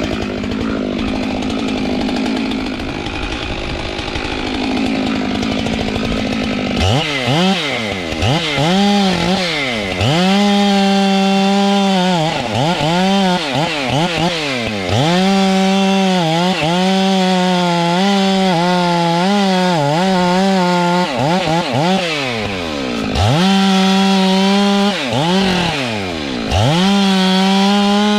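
Stihl MS462 two-stroke chainsaw. A steady rushing noise runs for several seconds, then the saw is revved again and again: it climbs to a high, steady full-throttle pitch, holds it for a few seconds at a time and drops back between squeezes.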